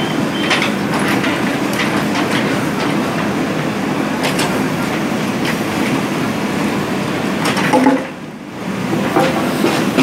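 JCB 3DX backhoe loader's diesel engine running steadily under load as the backhoe arm digs and swings, with scattered knocks and clatter from the rubble. The sound drops away briefly about eight seconds in, then comes back.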